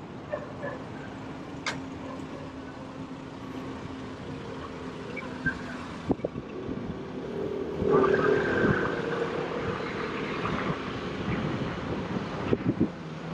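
Street sound in a quiet city lane: a steady low hum, a few sharp clicks, then a motor vehicle passing close, loudest about eight seconds in.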